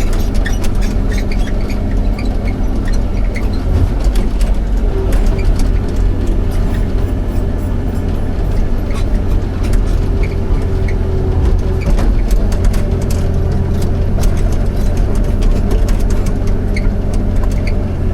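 Excavator's diesel engine running steadily, with frequent light clicks and knocks over it and a faint whine from about five to eleven seconds in.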